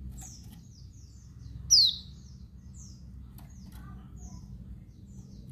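Female white-eye (pleci) calling: a run of short, high, downward-slurred chirps, with one much louder falling chirp just under two seconds in. A low steady hum sits underneath.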